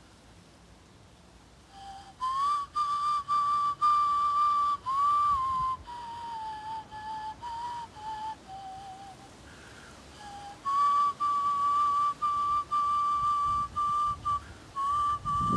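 Small hand-held flute playing a slow waiata melody of long held notes that slide up into pitch, softer and lower in the middle, beginning about two seconds in.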